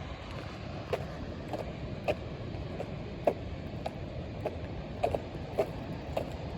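Footsteps at a steady walking pace, about one step every half second or so, over a steady low rumble of wind on the microphone.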